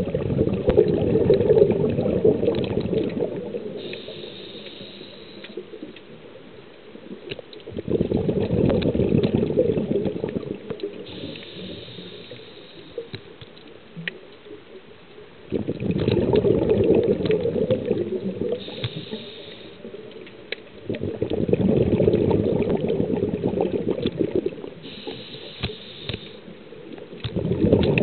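Scuba diver breathing through a regulator underwater: a bubbly rush of exhaled air every six to seven seconds, each lasting a few seconds, with a short high hiss of inhalation between them. Faint scattered clicks throughout.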